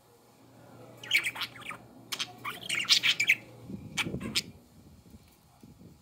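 Pet budgies (budgerigars) chirping and chattering in short quick bursts, with the busiest chatter about a second in and again around three seconds. A brief low rustle comes about four seconds in.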